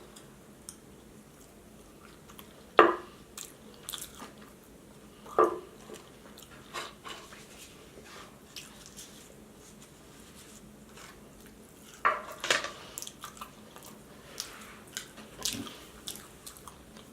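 Close-up eating sounds: biting and chewing breaded vegan chicken nuggets and tater tots, with scattered short crunchy bites and quiet gaps between. The loudest bites come about three and five seconds in and twice around twelve seconds in.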